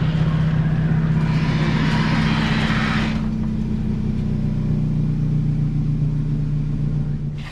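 A motor vehicle engine running steadily, with a rushing hiss for about two seconds starting about a second in; the engine sound cuts off suddenly at the end.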